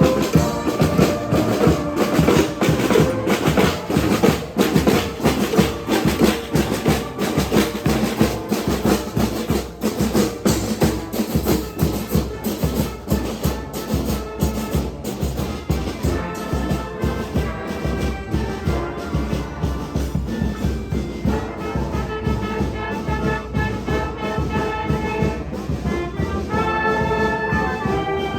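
A street brass band with drums playing: busy, rapid drumming dominates the first half, and from about halfway the horns' melody lines come through more clearly.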